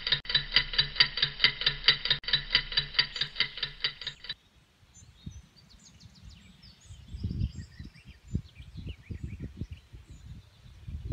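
Rapid, regular ticking with a ringing tone, about four ticks a second, under a title card; it stops abruptly about four seconds in. Quiet outdoor ambience of small birds chirping follows, with a low rumble of wind buffeting the microphone from about seven seconds in.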